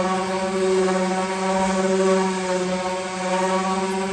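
Corded electric sander running steadily with a hum, its pad grinding on the painted fiberglass hull of a small boat. The paper is too fine to cut through the heavy epoxy paint and gelcoat.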